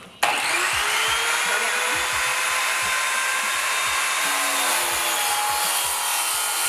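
Ryobi sliding miter saw starting suddenly about a quarter second in, its motor whine rising to speed, then running steadily as the spinning blade is brought down through a wooden board.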